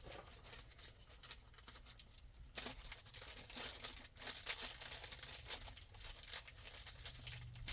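Plastic packaging crinkling and crackling as it is handled and worked open by hand, a dense run of small crackles starting a couple of seconds in.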